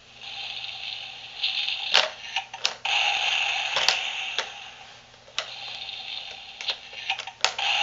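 Sharp plastic clicks and knocks from a toddler's plastic dinosaur toy playset as its buttons and parts are pressed, over a steady electronic sound from the toy that fades away about halfway and then starts again.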